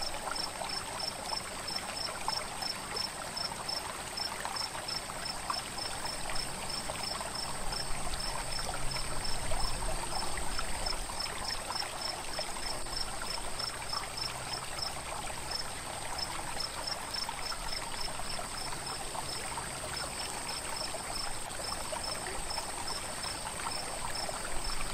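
Night insect chorus: a steady high-pitched trill with a cricket-like chirp repeating about two to three times a second over it, above a steady hiss.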